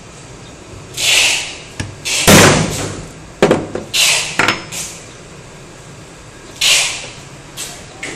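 Handling noises from steel grommet-setting tools: several knocks as the tools are picked up and set down on a wooden board and table, with scraping and rustling from a fabric strap being slid into place. The loudest knock comes a little over two seconds in.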